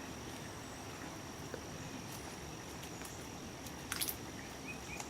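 A steady, high-pitched insect trill on one unbroken note, with a single sharp click about four seconds in, over faint low background noise.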